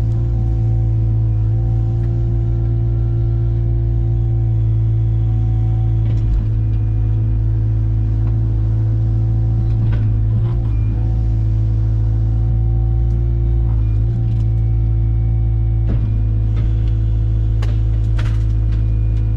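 Diesel engine of a heavy earthmoving machine running steadily under work, a deep continuous rumble, with scattered sharp clicks and knocks, most of them near the end.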